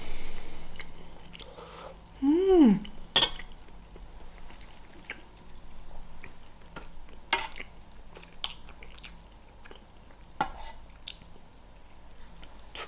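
Eating sounds: chewing and biting, with scattered sharp clicks of cutlery against dishes. About two seconds in, a short hummed "mm" that rises and falls in pitch.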